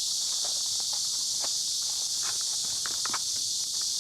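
Cicadas singing in a steady, high-pitched chorus, with scattered light knocks and rustles of close handling or footsteps.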